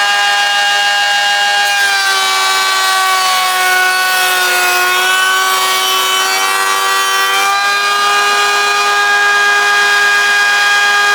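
Table-mounted router running at full speed with a steady high whine. From about two seconds in its pitch sags a little while the bit cuts a rebate in the wood, and it rises back near the middle.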